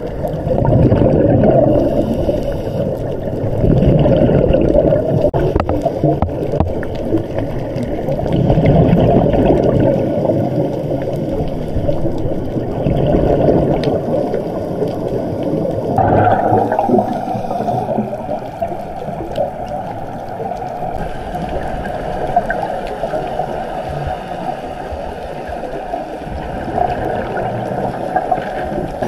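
Muffled rushing and gurgling water, as heard underwater through an action camera's housing, swelling every few seconds; the sound changes abruptly about halfway through to a steadier, slightly brighter rush.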